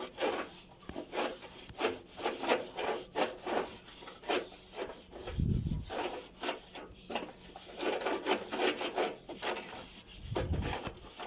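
A towel rubbing over the baking-soda-and-vinegar paste on the inside walls of a microwave oven, in repeated quick back-and-forth strokes, a few per second. Two dull bumps come about five and ten seconds in.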